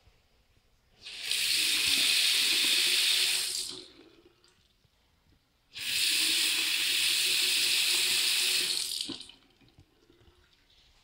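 Bathroom faucet turned on and off twice, water running into a Sterling sink basin for about three seconds each time.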